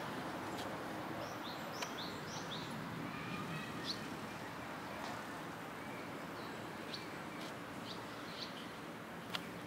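Outdoor ambience: a steady background hum with small birds chirping now and then, including a quick cluster of chirps about two seconds in. A few sharp ticks are scattered through it.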